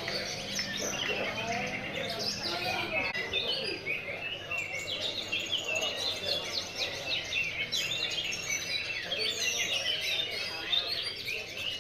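Many caged songbirds singing at once in a songbird contest, a dense tangle of overlapping rapid chirps and trills.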